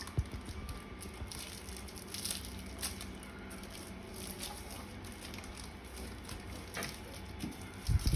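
Scattered light clicks and rustling, with a low thump near the end.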